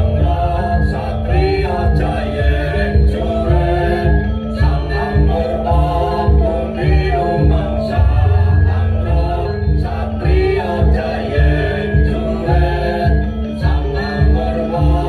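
Loud recorded music with singing, played through a carnival sound system, with heavy, dense bass throughout.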